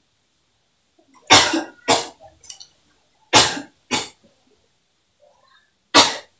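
A woman coughing hard, a staged cough for a fake coughing-up-blood prank: two coughs about a second in, two more about three and a half seconds in, and a single one near the end.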